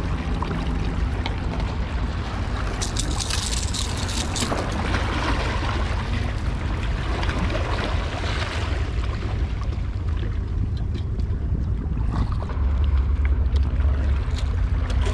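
Wind buffeting the microphone over waves washing against the rocks of a jetty, with a stronger gust about two seconds before the end.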